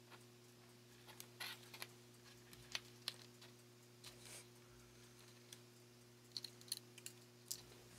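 Near silence with faint, scattered light clicks and taps as the thin wires and small plastic connectors of a lighting-kit wiring bundle are handled and laid down on a cutting mat, over a low steady hum.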